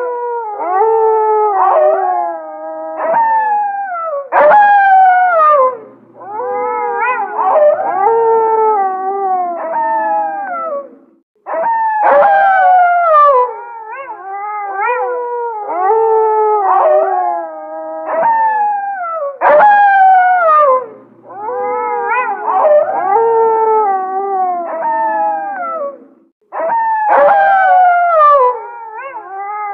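A pack of gray wolves howling in chorus: several voices overlap, each howl sliding down in pitch. The chorus drops out briefly about 11 seconds in and again about 26 seconds in.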